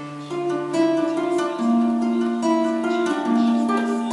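Acoustic guitar picking a slow intro melody, single notes ringing on one after another.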